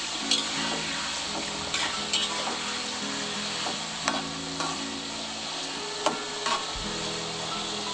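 Chicken livers and gizzards sizzling steadily as they fry in hot oil in a metal wok, with a metal spatula scraping and knocking against the wok every second or so as the pieces are turned.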